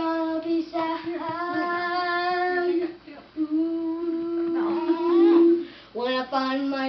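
A boy singing solo and unaccompanied, holding two long notes of about two seconds each, the second swelling louder near its end.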